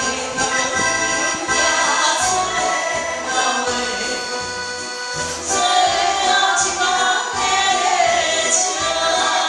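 A woman singing a song into a handheld microphone over recorded backing music.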